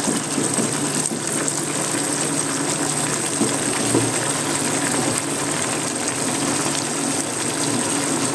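Chicken thigh pieces sizzling and simmering in a pan in the juices they have released, an even hiss over a steady low hum.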